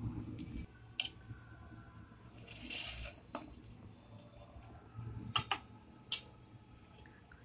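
Light clicks and taps of a metal spatula and knife against a wooden rolling board, with a brief scrape about two and a half seconds in, as stacked thin samosa pastry sheets are trimmed square.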